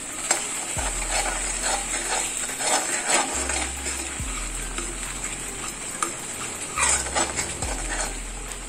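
A slotted metal spatula stirring and scraping a thick masala-and-cream paste around a metal kadhai, with irregular scrapes and light knocks against the pan, and the paste sizzling over the flame.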